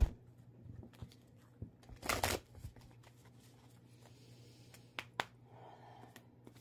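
A deck of oracle cards being shuffled by hand: a sharp snap at the start, a short rustling shuffle about two seconds in, and two more quick card clicks near the end.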